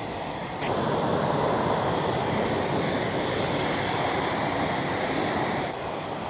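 Waterfall rushing down moss-covered rock cascades: a steady hiss of falling water that jumps louder a little under a second in and drops back near the end.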